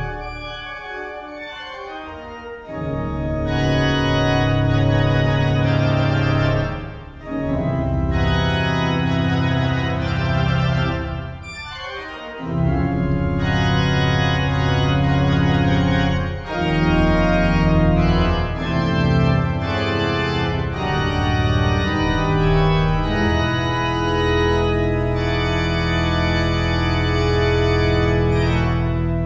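Grand organ playing slow, sustained full chords. It starts softly, swells to full chords about two and a half seconds in, and continues with brief breaks between phrases.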